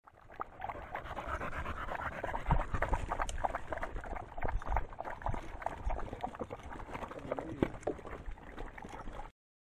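Dogs panting right at the microphone, mixed with many short clicks and scuffs as they move about.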